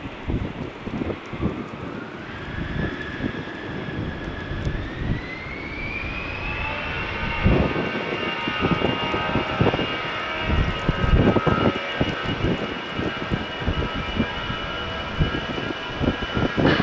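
Jet airliner engines spooling up: a whine that rises in pitch over the first seven seconds, then holds steady over an uneven low rumble as the aircraft runs at takeoff power.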